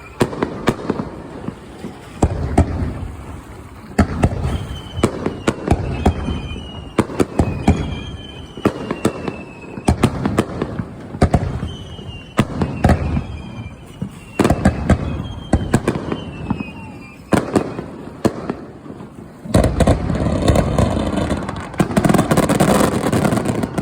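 Aerial fireworks over the sea going off in a rapid series of sharp bangs, with short falling whistles between the blasts. Near the end a dense barrage of bangs and crackle runs for several seconds and then cuts off suddenly.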